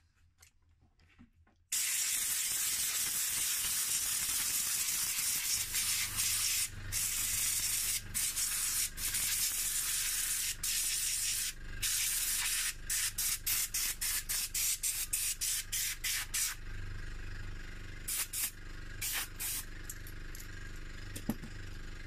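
Compressed-air blow gun on an airline hissing as it blows dust and grit out from between the bare key switches of a mechanical keyboard. It starts after a second or two, runs in long blasts, then from about halfway comes in many short, rapid blasts with brief gaps, and is quieter near the end.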